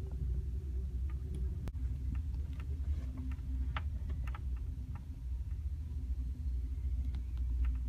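Low, steady rumble of an Amtrak California Zephyr passenger car rolling slowly along the track at about 15 mph, heard from inside the car, with faint scattered ticks.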